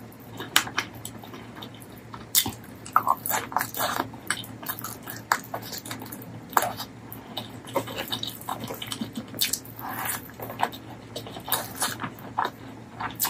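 Close-miked wet chewing and lip smacking of a person eating saucy mutton curry, with irregular sharp smacks and clicks every half second or so.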